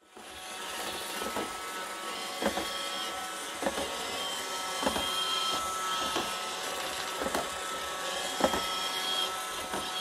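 iRobot Roomba 532 robot vacuum running on carpet: a steady motor hum with an on-and-off high whine, and a sharp knock about once a second. This sound is the sign of dirty brushes, with dirt packed into the brush roller, which leads to the Roomba's error 2.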